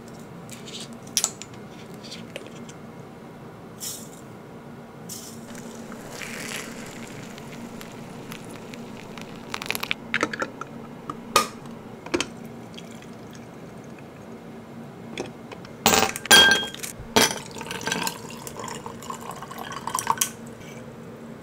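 Kitchen sounds of making iced tea: loose tea tipped from a tin, water poured into a glass tea pot, and near the end tea poured over ice in a glass with a run of sharp clinks of ice and glass. A steady low hum lies underneath.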